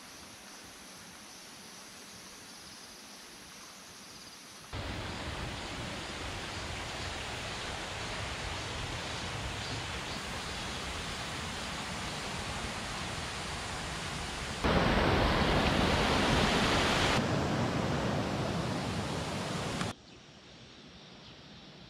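A mountain stream rushing over rocks: a steady noise that starts suddenly about five seconds in, gets louder about fifteen seconds in, and breaks off near the end, leaving faint outdoor hiss.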